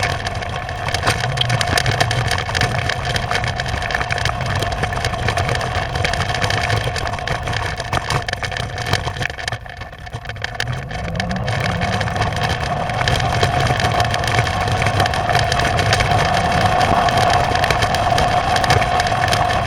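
Storm noise on a rooftop dome camera: a steady rush of wind with dense crackling impacts against the dome, under a steady hum-like tone. It dips briefly about ten seconds in, then builds and stays loud.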